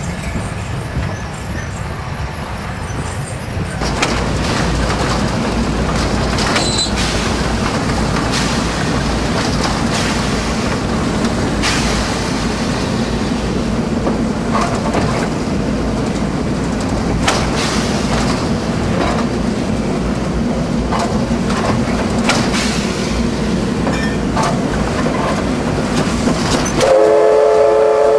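Steam locomotive hauling loaded clay wagons, heard from on board: a steady rumble with irregular clanks and knocks, louder from about four seconds in. About a second before the end the locomotive's steam whistle starts blowing a steady note.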